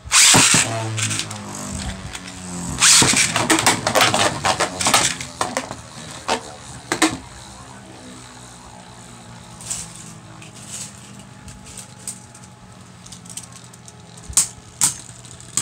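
Two Beyblade Burst spinning tops launched into a plastic stadium: a loud scraping clatter as they land, then a steady whirring hum as they spin, broken by sharp clacks when they collide, with a cluster of hits a few seconds in and a couple more near the end.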